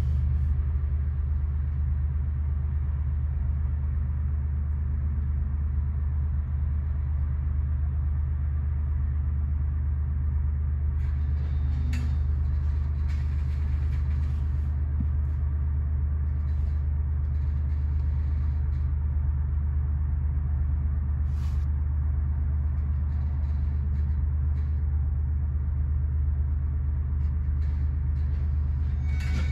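Steady low rumble heard from inside a car beside a train of loaded tank cars, with a few faint clicks and knocks around twelve seconds in.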